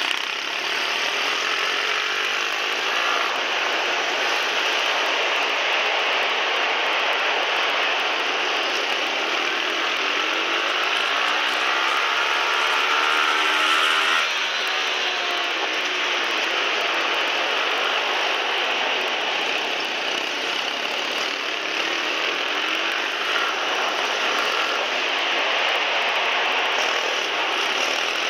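Pit bike engine revving up and down as the bike is ridden hard through corners, heard from a camera mounted on the bike. The pitch rises and falls most plainly about halfway through.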